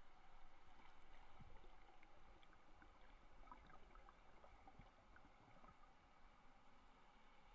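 Near silence: faint underwater creek ambience, a soft hiss with scattered tiny ticks and a few dull low thumps.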